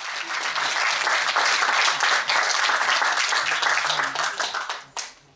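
Audience applauding, the clapping dying away near the end with one last clap.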